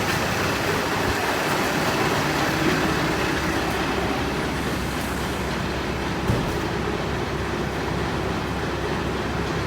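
Steady rumble of idling vehicle engines, with a single knock about six seconds in.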